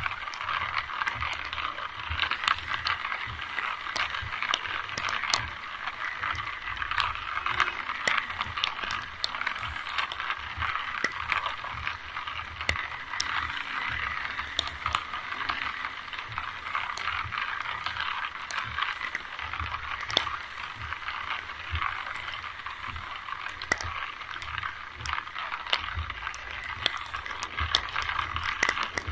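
Steady rain hissing, with many sharp drop ticks close to the microphone and a low rumble underneath.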